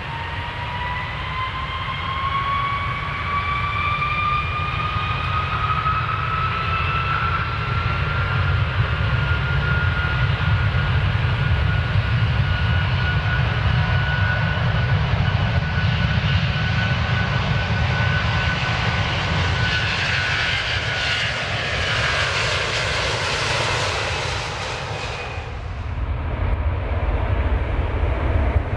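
Airplane engines at full power for takeoff: a whine rises in pitch over the first several seconds and then holds steady over a heavy low rumble, with a hiss building. A few seconds before the end the whine and hiss cut off suddenly, leaving the rumble.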